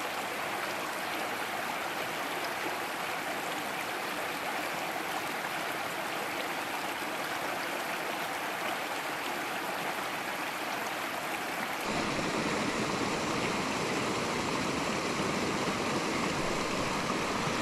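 Small rocky brook rushing steadily over stones and a little cascade. About twelve seconds in the rush changes abruptly and becomes a little louder and deeper.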